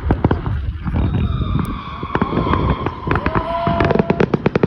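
Fireworks going off: a dense run of sharp bangs and crackling pops, thickest near the end, with a long held whistle-like tone through the middle.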